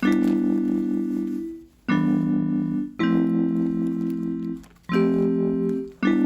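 Music: sustained keyboard chords, each held for a second or two, fading, and followed after a short gap by the next chord.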